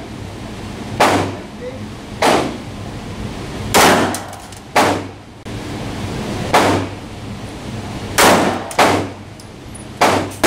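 Pistol shots from a Ruger LCP (.380 ACP) and a Ruger LC9 (9mm) fired from both hands, about eight sharp reports spaced a second or so apart, two of them close together near the end. Each shot rings off the walls of an indoor range.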